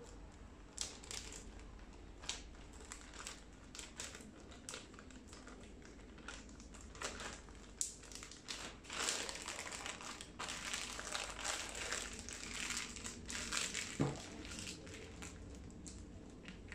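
Plastic zipper storage bag crinkling as hands seal its zip track and press the air out of it, with many short crackles that grow denser in the second half.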